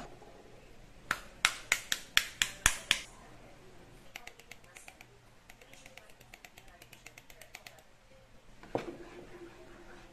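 Metal spoon and utensils clicking against a pan of thick white sauce: about eight sharp clicks within two seconds, then a long run of faint quick ticks as ground black pepper is added, and near the end a knock as a spoon starts stirring the sauce.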